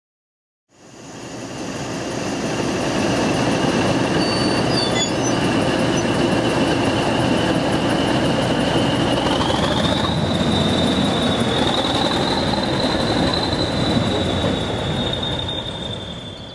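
English Electric Class 40 diesel locomotive running past close by after a brief silence: its engine rumbles under the high, steady whistle of its turbochargers, which rises in pitch a little over halfway through. The sound fades away near the end.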